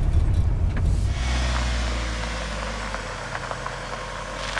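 Camper van driving on the road: a steady low engine and road rumble with tyre and wind hiss, slowly fading.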